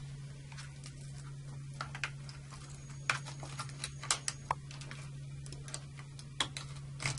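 Small plastic clicks and taps, scattered irregularly, as two overcurrent trip switches are handled and pushed down into a circuit breaker's plastic accessory tray until they lock in place. A steady low hum runs underneath.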